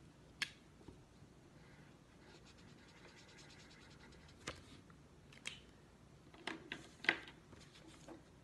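Marker drawing on a paper plate: a stretch of fine, rapid scratching in the middle, with a few sharp clicks and taps scattered through, the loudest a little before the end.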